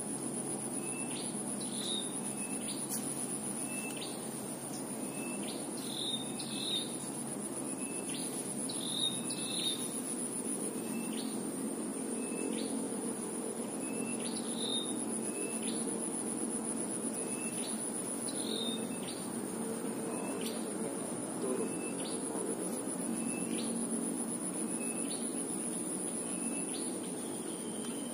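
Tropical stream-bank ambience: a steady high insect drone, crickets or cicadas, with a bird repeating a short rising chirp about once a second, over a low steady rush.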